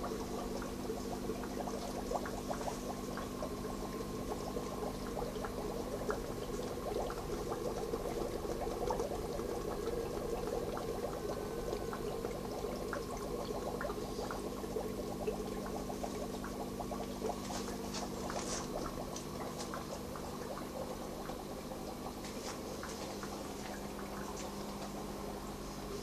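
Nutrient solution trickling and splashing through an NFT hydroponic system, a steady stream of small irregular drips over a constant low hum.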